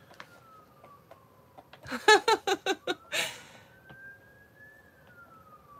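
A woman's short high-pitched giggle of six or seven quick pulses, ending in a breathy exhale. Under it, a faint siren slowly rises and falls in pitch.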